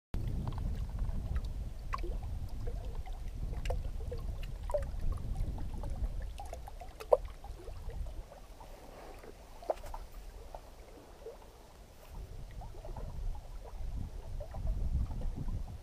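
Small waves lapping and plopping against rocks at a lake's edge, with scattered light plinks and a couple of sharper plops about seven and ten seconds in. A low, fluctuating wind rumble on the microphone sits underneath.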